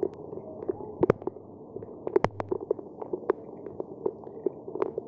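Heavy rain, with drops hitting the wet microphone: irregular sharp taps and knocks over a muffled, steady hiss.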